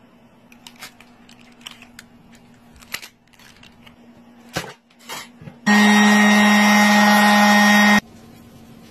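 Scattered taps and scrapes of a putty knife working at a mold edge, then a random orbit sander running loud and steady on a cured epoxy-and-wood slab for about two seconds before cutting off abruptly.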